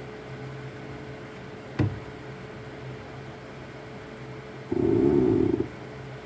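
Elegoo Saturn 4 Ultra 16K resin 3D printer running with a steady hum. There is a single sharp knock about two seconds in, and a loud mechanical buzz lasting about a second near the end, part of the knocking noise the printer makes while printing.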